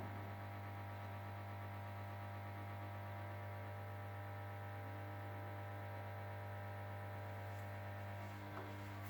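Ariston Margherita washing machine running on a 60° cottons wash: a steady low electrical hum, with a slight change about eight and a half seconds in.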